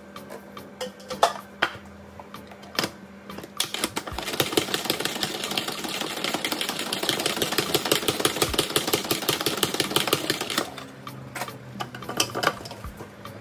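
Plastic salad spinner being spun by the handle on its lid, a fast rattling whir lasting about six seconds as it spins water off washed cos lettuce. Sharp plastic clicks and knocks come before it as the lid goes on, and again near the end as the lid comes off and the basket is lifted out.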